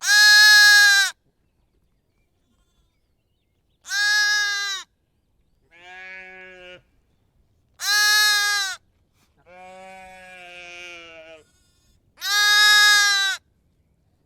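Sheep bleating, six separate bleats with short silences between. Four are loud, high-pitched calls about a second each. Two are quieter and lower, and the second of those lasts about two seconds.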